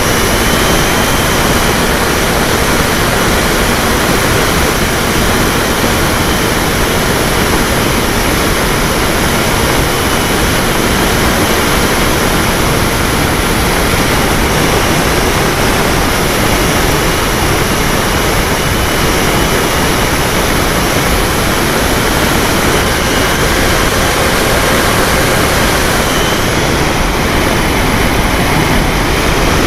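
Polaris seaplane in flight, heard from its onboard camera: a loud, unchanging rush of wind and propeller noise, with a faint steady engine hum underneath.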